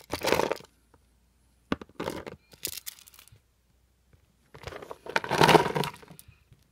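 Small hard-plastic toy figures clattering and rattling as a hand rummages through them in a plastic storage tub, in three spells, the longest and loudest near the end.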